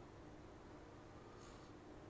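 Near silence: room tone with a faint low hum, and one brief faint hiss about one and a half seconds in.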